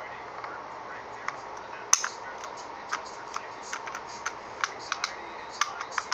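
Small sharp clicks and taps from the plastic and metal parts of an Umarex T4E Walther PPQ air pistol's trigger and hammer mechanism being handled and fitted during reassembly, with one louder snap about two seconds in.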